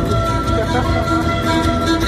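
Band playing an instrumental passage of a folk song: held melody notes over a steady beat.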